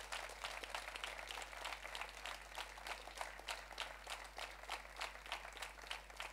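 Audience applauding, the separate claps of a modest seated crowd heard distinctly.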